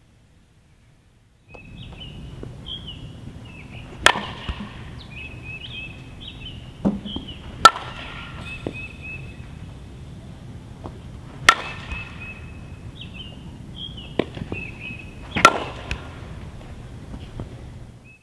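A softball bat hitting tossed balls four times, each a sharp crack, about every three to four seconds, with a few fainter knocks in between. Birds chirp throughout.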